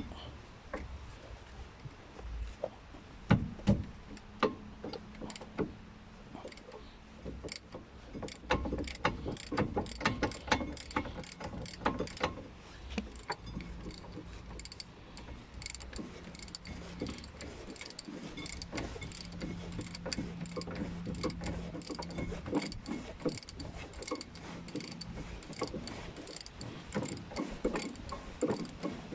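Ratchet wrench clicking over many back-and-forth strokes as a 21 mm brake caliper bracket bolt is undone, after a few scattered metal knocks in the first seconds.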